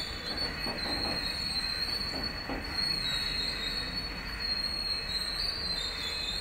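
ICF passenger coaches rolling past on the rails: a steady wheel-on-rail rumble with a high, wavering wheel squeal held throughout, and a few faint clacks over rail joints about a second and two and a half seconds in.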